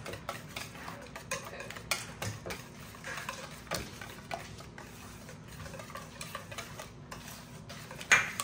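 Wire balloon whisk stirring creamy ranch dressing in a stainless steel bowl, its wires ticking and clinking against the metal sides in a quick, irregular rhythm. A louder clink comes near the end.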